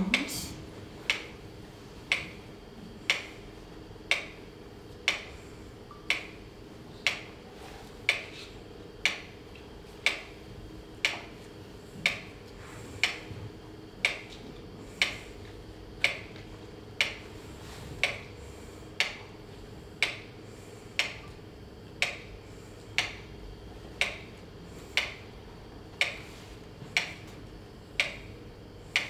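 Steady, even ticking, a sharp click about once a second, like a clock or metronome, over a low steady hum.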